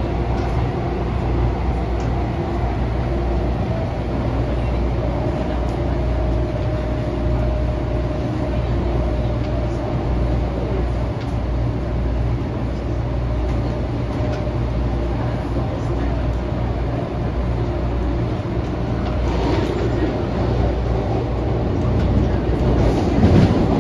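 Adtranz-CAF electric multiple unit running on the MTR Airport Railway, heard from on board: a steady low rumble with a faint steady whine over it. The running noise grows a little louder and rougher near the end.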